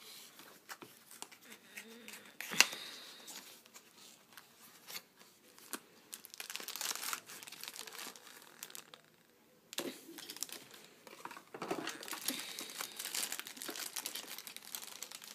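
Clear plastic bag crinkling and rustling as a die-cast toy is slid out of its cardboard box and the wrapping is pulled off, with a sharp click about two and a half seconds in and a short lull around nine seconds.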